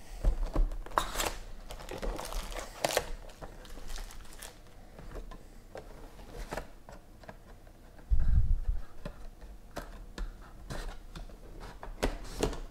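Foil trading-card packs crinkling and cardboard card boxes being handled on a table, with scattered clicks and taps. A dull thump comes about eight seconds in.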